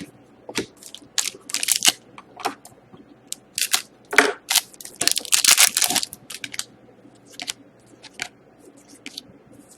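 Hockey trading cards and their packaging being handled: a series of light clicks and crinkling rustles, with two longer crinkling stretches about two seconds in and about five seconds in.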